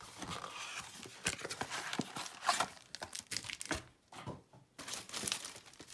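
Crinkling and tearing of a trading-card pack's wrapper as it is opened, in irregular crackles with a short pause about four seconds in.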